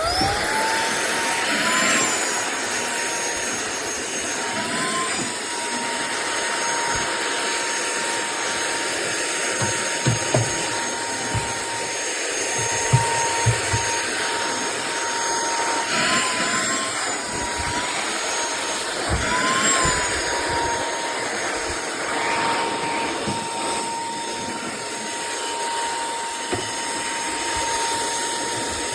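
SERVOMASTER cordless handheld vacuum switched on, its motor spinning up within a fraction of a second to a steady high whine over a rush of air. The pitch briefly rises and settles a few times, and a few light knocks come around the middle.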